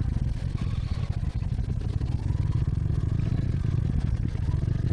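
Motorcycle engine running while riding, a steady low rumble with a faint whine that dips and rises in pitch.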